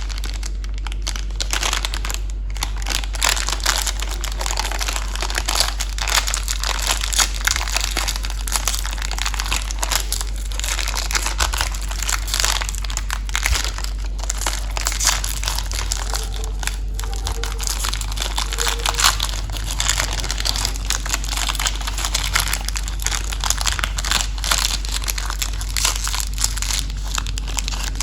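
Plastic candy wrappers and packaging crinkling and rustling continuously as they are handled and torn open, over a steady low hum.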